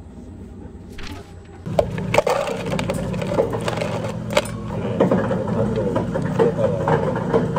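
Ice cubes clinking and cracking in a plastic cup, then water poured over the ice for an iced americano, starting about two seconds in over a steady low hum.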